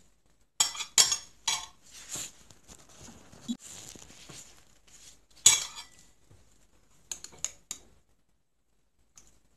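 A metal spoon clinking against a ceramic soup bowl as it scoops through the soup: a few sharp clinks in the first second and a half, the loudest one about five and a half seconds in, and a quick run of lighter taps near the end.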